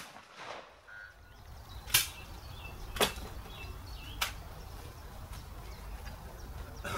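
Shotgun shots on a trap range: sharp single reports about two, three and four seconds in, the first the loudest, with more right at the start and at the end.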